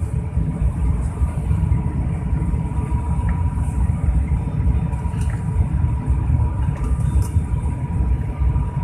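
Airliner cabin noise on approach to landing: a steady low rumble of engines and airflow, with a thin steady tone running through it.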